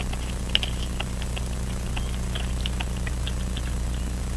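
Light, irregular clicks and ticks of steel tweezers and a tiny screw being handled against a pocket-watch movement as the screws go back into its plate, over a steady low hum.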